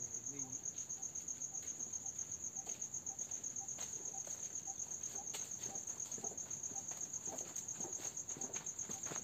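An insect trilling steadily in a high, rapidly pulsing tone. Footsteps on the dry leaf-littered trail crunch in more and more often during the second half.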